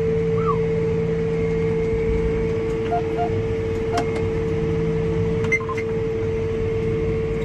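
Tractor engine and cab blower droning steadily inside the cab, with a constant hum. A couple of faint short beeps about three seconds in and a sharp click a second later.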